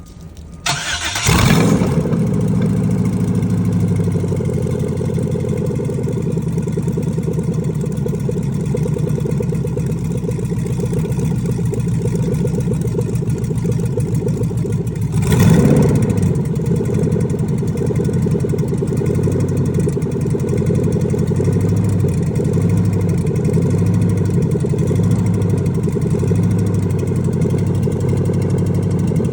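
Rebuilt 2005 LSX V8 cranking and catching about a second in, then idling steadily, with one short rev about halfway through. The idle carries a ticking sound whose cause the owner is asking about.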